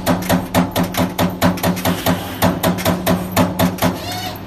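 CNC turret punch press punching sheet metal: rapid, evenly spaced punch strikes, about five a second, over a steady machine hum. The strikes pause briefly near the end.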